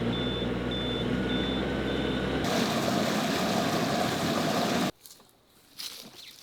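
A motor hums steadily under a high electronic beep that repeats about every half second. After a couple of seconds a steady hiss takes over, and it cuts off suddenly about five seconds in, leaving only faint sounds.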